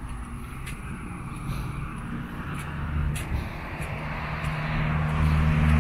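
A motor vehicle's engine hum and tyre noise getting steadily louder as it approaches, loudest near the end as it passes close by.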